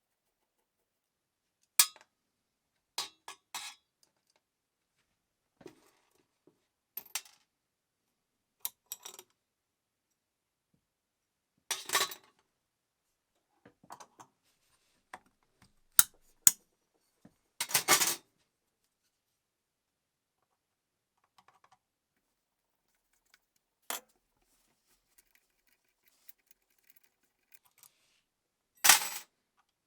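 Scattered clinks and clicks of small metal parts and tools being handled and set down, about a dozen short sounds with quiet gaps between; a few sharper knocks stand out, the loudest about two seconds in, around the middle and near the end.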